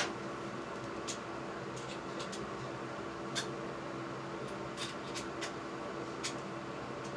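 A steady hum in a small room, with a handful of light, sharp clicks and taps scattered through it.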